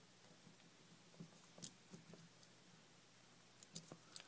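Faint, scattered small metal clicks of a steel pick working at a brass EMTEK lock cylinder as it is taken apart, with a quick cluster of clicks near the end.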